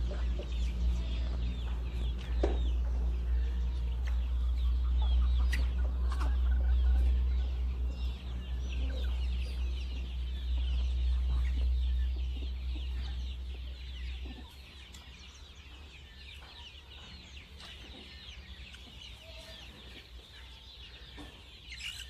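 Free-range desi chickens clucking, with many short high chirps throughout. A strong low rumble runs under them and stops about 14 seconds in, after which the flock is heard more quietly.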